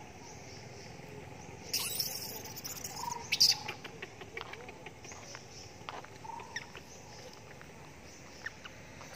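Short high squeaks and chirps amid scattered clicks, with a brief rustling scuffle about two seconds in and a louder sharp rustle or clatter near the middle.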